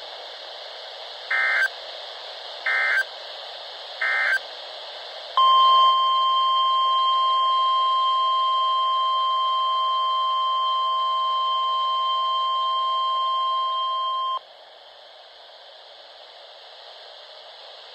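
NOAA Weather Radio emergency alert signalling. Three short screechy SAME data bursts come about a second and a half apart. Then a loud, steady single-pitch warning alarm tone holds for about nine seconds and cuts off abruptly. Radio hiss sits underneath throughout.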